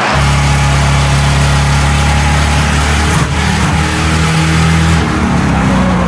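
Ford Crown Victoria Police Interceptor V8 engine running hard at a steady pace while racing, a low, even drone with a brief dip about halfway through.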